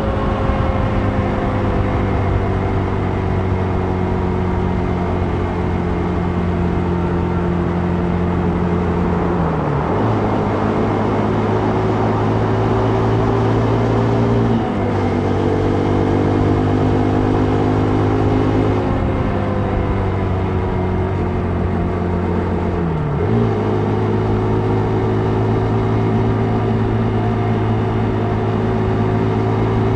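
Motorcycle engine running at road speed with wind rush on the microphone. The engine note drops sharply about ten seconds in and again about twenty-three seconds in, as with gear changes, and steps up about fifteen seconds in.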